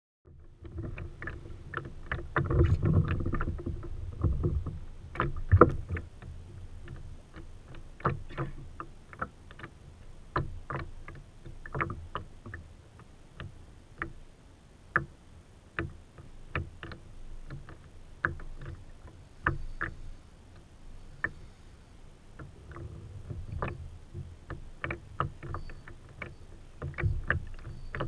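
Hobie pedal kayak under way: water washing along the hull, with irregular sharp knocks and clicks from the boat, roughly one or two a second.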